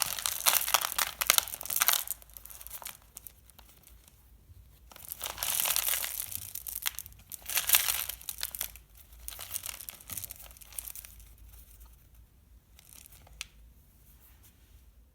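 Plastic candy packaging crinkling and rustling as it is handled, in several bursts. The loudest are in the first two seconds and from about five to eight seconds in.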